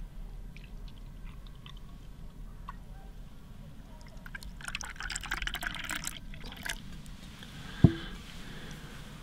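Milk pouring from a glass bottle into a mug, with faint drips at first and a louder splashing stream for a couple of seconds in the middle as the mug fills. A single sharp knock near the end.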